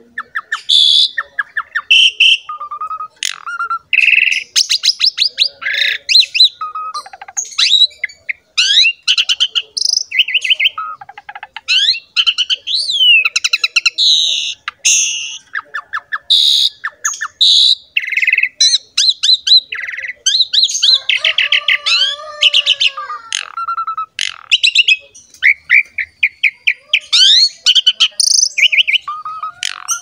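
Asian pied starling (jalak suren) singing a long, varied song of whistles, rapid chattering trills and harsh rasping notes with hardly a pause. A lower, harsher stretch comes about two-thirds of the way through.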